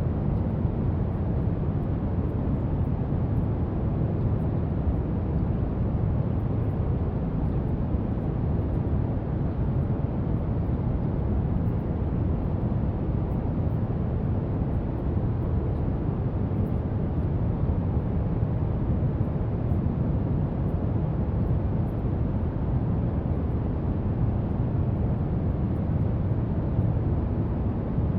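Brown noise: a steady, deep rushing hiss, strongest in the bass and fading toward the treble, with no change.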